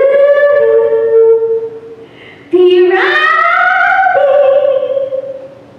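Two long, drawn-out sung vocal calls, each sliding up in pitch and then held, the second starting about two and a half seconds in.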